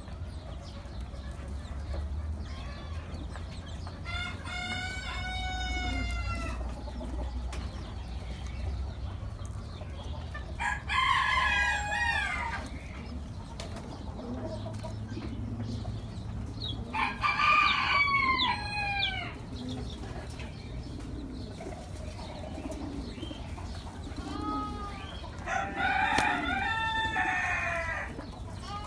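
A rooster crowing four times, a crow about every six to seven seconds, each lasting a second or two; the first is fainter than the others.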